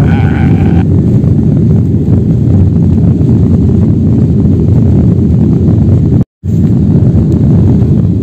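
Steady, loud rush of a jet airliner's engines and airflow heard from inside the cabin during the climb after takeoff, cut by a brief dropout about six seconds in. A wavering voice from a meme sound effect trails off in the first second.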